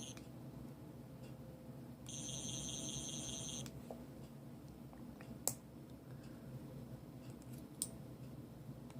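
Replica River Song sonic screwdriver's sound chip giving a steady high-pitched electronic buzz for about a second and a half, starting about two seconds in. Two sharp clicks follow later.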